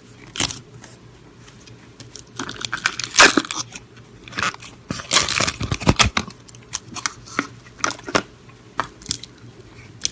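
Fingers pressing and squishing slime, crackling and popping as trapped air bursts: thick bursts of crackle for the first six seconds, then a run of separate sharp pops.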